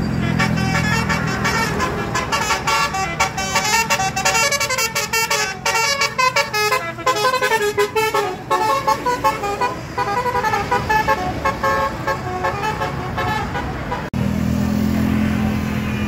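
A bus's telolet horn, a set of multi-tone air horns playing a fast tune of short stepping notes for about fourteen seconds. It stops abruptly, leaving the bus's diesel engine running.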